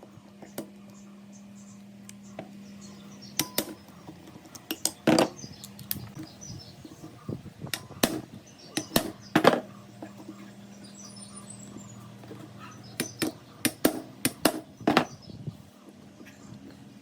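Metal parts knocking and clinking as they are handled, about a dozen sharp strikes, several with a short ring. A faint steady hum sits underneath.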